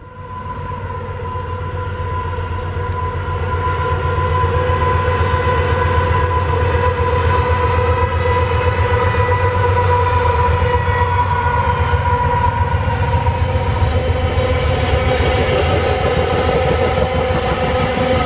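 Two diesel-electric locomotives hauling a loaded iron-ore train at speed. A deep engine rumble grows over the first several seconds and then holds, with a steady whine sounding over it.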